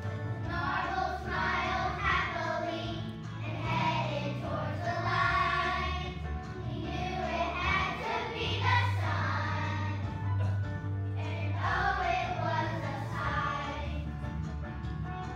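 A group of young children singing together as a choir over instrumental accompaniment with a steady bass line.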